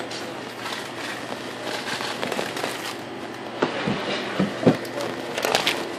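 Phone microphone muffled inside a trouser pocket during walking: cloth rustling and scraping against it over a steady background rumble, with a run of sharper crackles and knocks in the second half.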